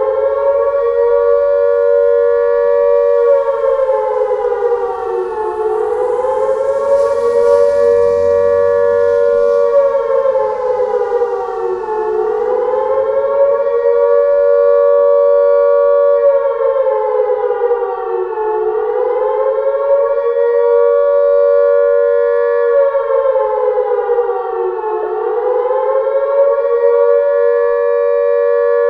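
LRAD DS-60XL speaker array sounding a synthesized Carter-style mechanical siren tone in attack mode. It finishes winding up just after the start, then wails up and down over and over, its pitch dipping and climbing back about every six and a half seconds.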